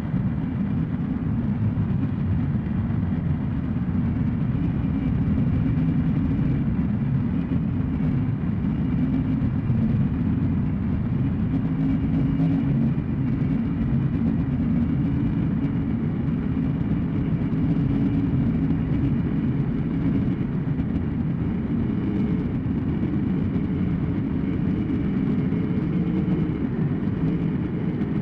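Harsh noise drone made by running music tracks through a chain of effects pedals into a Boss RC-505 looper. It is a dense, steady low rumble with faint thin tones held above it.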